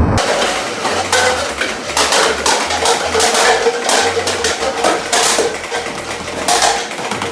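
Lightweight plastic cups clattering and tumbling as they are knocked down, with many quick irregular clicks and knocks. A faint steady hum runs underneath.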